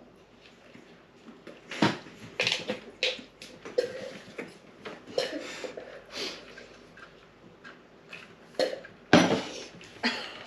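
A person coughing and gagging in short noisy bursts over a plastic bowl, about seven times, the loudest near the end, with a little clatter of the bowl, in disgust at a sweet she dislikes.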